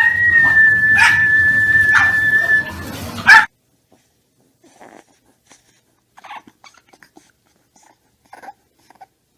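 A dog whining in one long, high, steady note for about three seconds, with short yelps about once a second. The sound then cuts off abruptly, leaving only faint ticks and taps.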